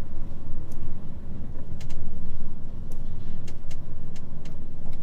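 HGV truck driving along a country lane, heard from inside the cab: a steady low rumble of diesel engine and road noise, with several sharp clicks or ticks scattered through it.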